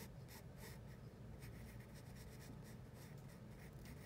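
Pencil lead scratching on paper in quick, repeated shading strokes, about three or four a second, faint.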